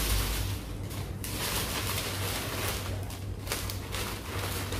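Thin plastic shopping bag crinkling and rustling on and off as hands dig through it.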